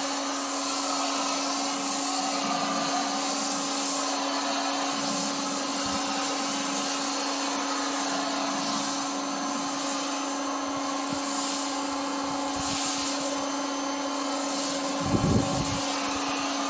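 Pressure washer running with its spray gun and foam cannon shooting soap foam, a steady motor hum under a continuous spraying hiss, the cannon's soap dial turned to maximum. A brief low thump comes near the end.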